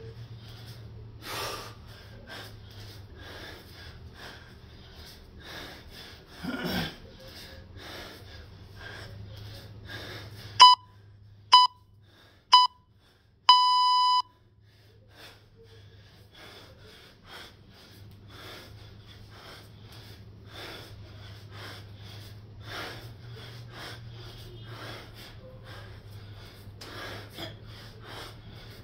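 Rhythmic hard breathing of a man working through a set of kettlebell snatches. About ten seconds in, an electronic workout timer beeps three short times and then once long.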